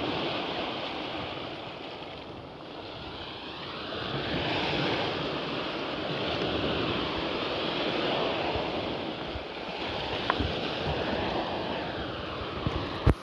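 Sea waves washing in and out in slow swells, with wind on the microphone. A sharp knock sounds just before the end.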